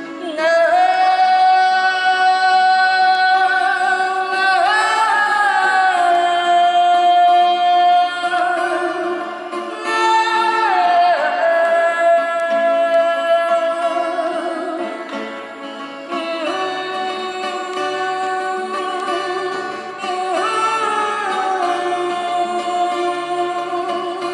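Fado: a woman sings long held notes with vibrato, phrase after phrase, over plucked Portuguese guitar and classical guitar accompaniment.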